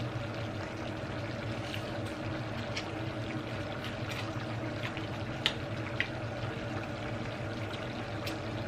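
Eating sounds from a person eating crab with her hands: scattered short wet smacks and sucking clicks from lips and fingers, two sharper ones about five and a half and six seconds in. Under them runs a steady low hum.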